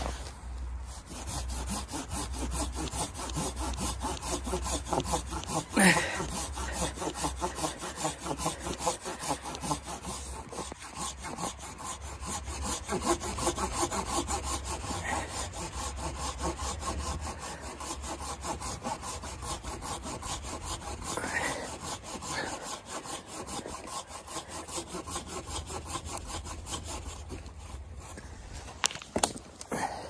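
Hand saw cutting through a fallen log, in continuous back-and-forth strokes of the teeth through the wood, stopping near the end.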